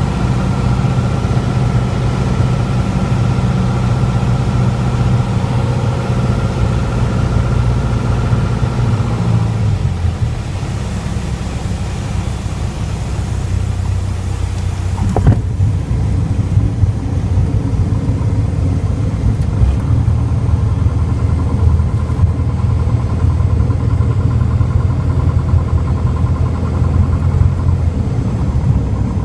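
Single-engine Piper PA-28's engine and propeller running at low power during the landing rollout, heard from inside the cockpit. The engine note drops lower about a third of the way through, and there is a single sharp click about halfway through.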